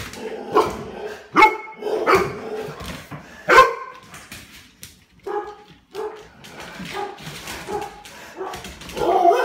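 Dogs barking in play: a few loud, sharp barks in the first four seconds, then a run of shorter, quieter barks that grow louder again near the end.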